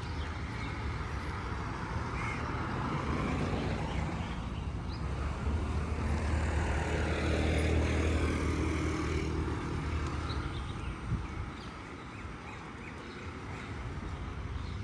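A motor vehicle passing by on a road, growing louder to a peak around the middle and then fading away, with faint bird chirps over it.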